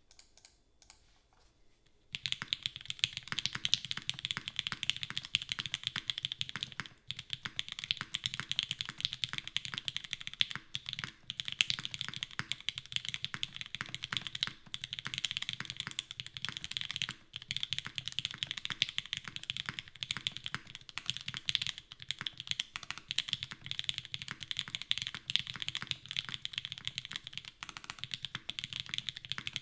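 Fast, continuous typing on a custom mechanical keyboard with lubed Gateron Oil King linear switches, GMK keycaps and a full aluminium plate with no foam. It starts about two seconds in, with a couple of brief pauses.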